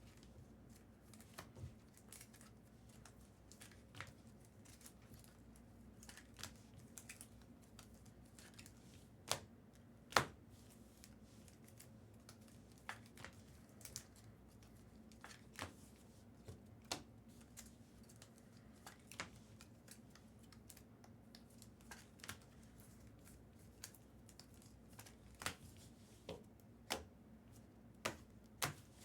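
Trading cards and packs being handled on a table: a series of light, sharp clicks and taps, about one every second or two, with a couple of louder ones about nine and ten seconds in and several more near the end.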